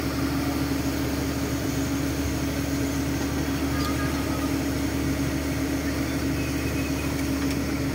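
Fishing boat's engine running steadily: an even drone with one constant hum that does not change.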